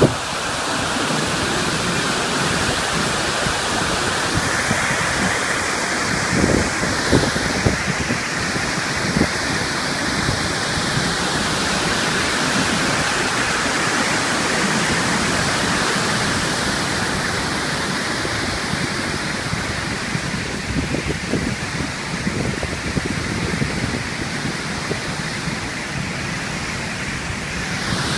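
River waterfall rushing in a steady, dense roar of falling water, with occasional wind buffeting the microphone.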